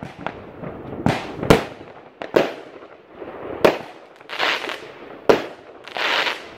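Fireworks going off overhead: about six sharp bangs, roughly a second apart. Between the later bangs come two short stretches of hissing, about four and a half and six seconds in.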